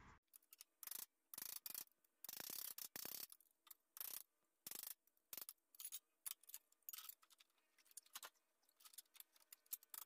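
Faint, irregular light taps of a small hammer on a sheet-metal patch panel held against a sheet metal roller, bending the metal into a curve. Some taps come singly and some in quick runs.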